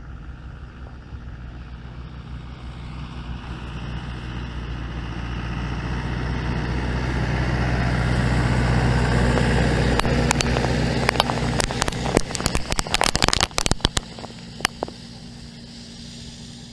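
Lamborghini tractor's diesel engine running steadily as it drives past pulling a centrifugal fertiliser spreader, growing louder to its nearest point about halfway through and then fading as it moves away. As the spreader passes, a rapid patter of sharp ticks follows for a few seconds: the thrown nitrogen fertiliser granules landing around the microphone.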